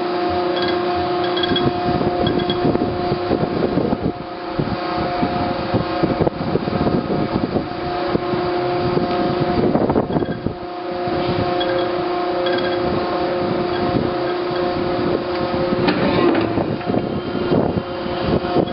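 Schwabe Model D hydraulic clicker press running, its 3 HP motor and hydraulic pump giving a steady hum with mechanical clatter. Louder swells come about ten seconds in and again near the end.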